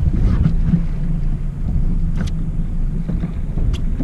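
A boat's outboard motor running steadily at trolling speed, with a low hum, as the boat moves through choppy water. Two light clicks come about halfway through and near the end.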